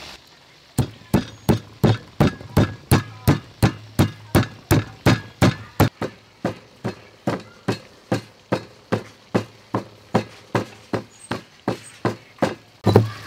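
Stone pestle pounding red pepper in a stone mortar: a steady run of sharp knocks, about three a second, starting about a second in.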